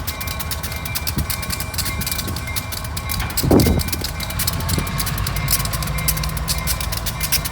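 Diesel locomotives of a stopped freight train rumbling steadily at idle, ready to pull away, with a short louder burst of sound about three and a half seconds in.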